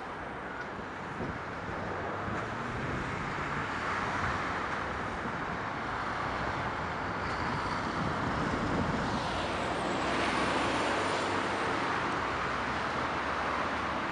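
Steady outdoor rushing noise of wind and distant road traffic, with a low rumble underneath, swelling a little about ten seconds in.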